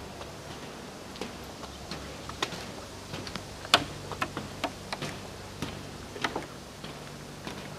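Footsteps on wooden footbridge planks: sharp, irregular knocks about two a second, one of them louder about halfway through.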